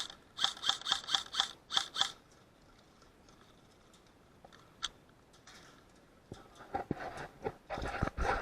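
An airsoft gun firing a quick string of about ten shots, each a sharp click with a ringing snap. A single shot follows a few seconds later, and near the end come crunching and dull thumps of movement.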